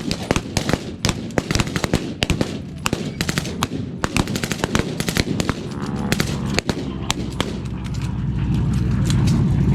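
Blank-firing WWII rifles and machine guns, rapid irregular shots and bursts overlapping one another, thinning out toward the end. A low drone of aircraft engines swells near the end.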